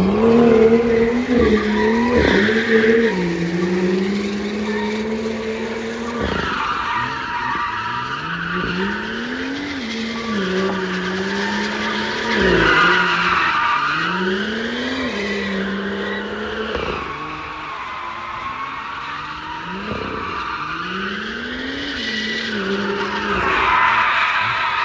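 BMW M2's turbocharged straight-six working hard while the car drifts in circles, its pitch climbing and dropping every few seconds as the throttle is worked. Over it, the spinning rear tyres squeal.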